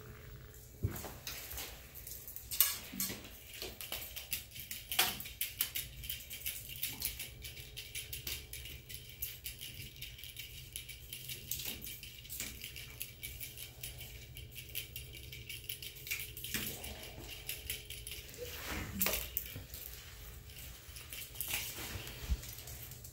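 Kittens playing with a feather wand toy: irregular light rustling and tapping, with a few sharper clicks scattered through.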